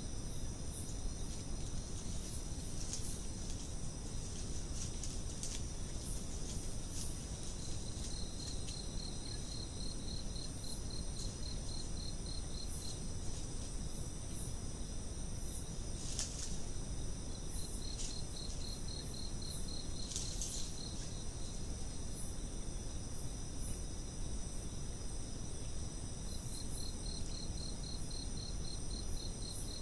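Night insect chorus: several steady high-pitched insect songs, joined three times by a rapid pulsed trill lasting a few seconds each. A steady low rush of background noise sits underneath.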